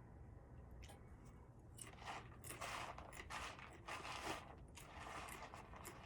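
A person chewing and crunching food close to the microphone, in several bursts from about two seconds in until near the end.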